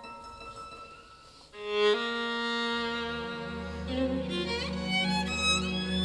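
Two solo violins with a string orchestra playing contemporary classical music: soft held notes, then about a second and a half in a loud entry over sustained low strings. Near the end the pitch slides upward several times and settles on a high held note.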